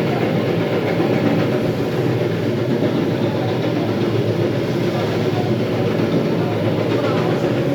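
Electric terrazzo grinder running steadily, its grinding heads working the floor with a continuous, even grinding hum.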